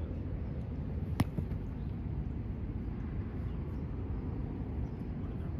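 A single sharp smack about a second in, as a Spikeball (roundnet) ball is struck in play, over a steady low outdoor rumble.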